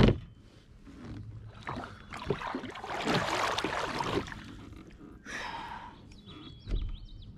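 Hands splashing in lake water over the side of a kayak: a noisy wash lasting about two seconds, with a sharp click at the start and scattered knocks on the hull. Birds chirp faintly near the end.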